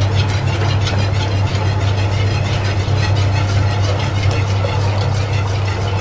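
Wire whisk beating cream cheese into boiling water in an aluminium stockpot, with fast light clicks and scraping against the metal, over a steady low hum.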